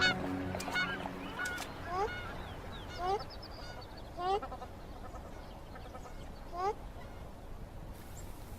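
A bird calling repeatedly: five short calls about a second apart, each rising quickly in pitch. Sustained background music fades out in the first second or so.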